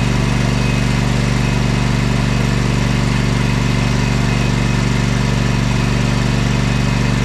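Riding lawnmower engine running at a steady speed, an even unbroken drone.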